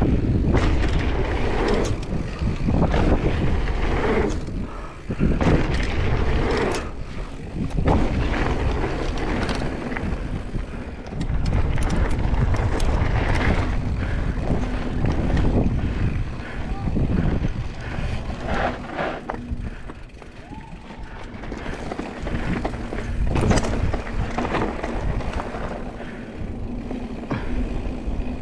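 Downhill mountain bike ridden fast on a dirt trail: wind rushing over the helmet camera, tyres running on dirt and gravel, and the bike rattling and knocking over bumps and jump landings.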